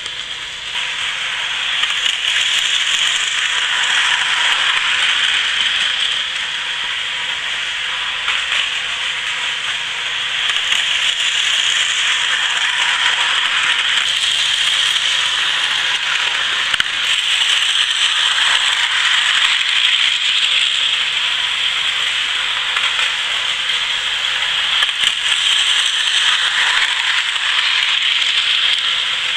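HO scale electric model train running on sectional track: a steady mechanical whir and rattle from the small locomotive motor and wheels, growing louder and softer as the train circles nearer and farther away.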